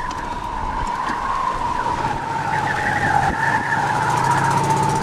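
Steady high whine from power lines near a tornado, drifting slightly lower in pitch, which the storm chaser puts down to the power lines; a low hum joins about two seconds in.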